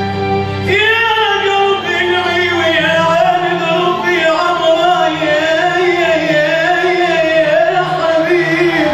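Male singer performing a mawal, an improvised Arabic vocal passage, entering about a second in and holding one long, ornamented line with a wavering pitch, over sustained notes from the accompanying orchestra.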